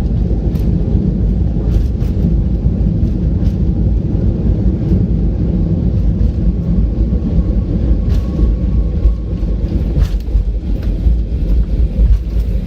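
Boeing 737-800 cabin noise during landing: a loud, steady low rumble from the aircraft, with scattered light clicks and rattles.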